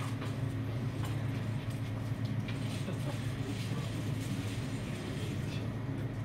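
Room tone of a crowded billiard café: a steady low hum with a few faint, scattered clicks. No cue or ball strike.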